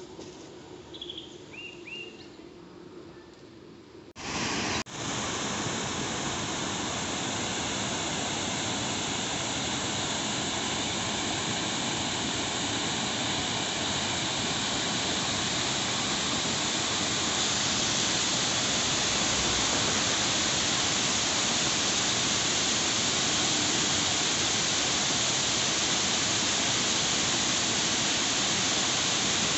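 Water pouring over the long weir of Kodiveri Dam: a loud, steady rush that starts abruptly about four seconds in. Before it, faint outdoor ambience with a few high bird chirps.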